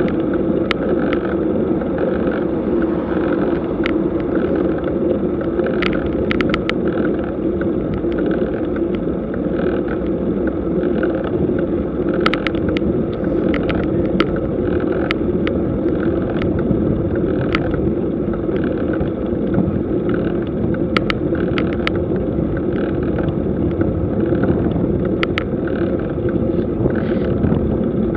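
Bicycle riding uphill at low speed on asphalt: a steady rumble of tyres and air on the bike-mounted camera's microphone, with scattered sharp clicks and rattles.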